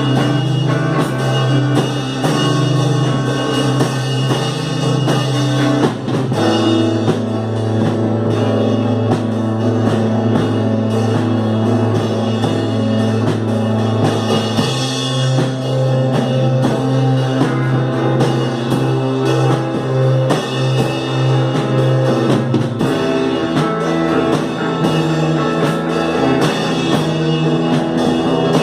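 Instrumental psychedelic rock played by a band on drum kit, guitars and synthesizers, with a low held note underneath that shifts to a new pitch three times.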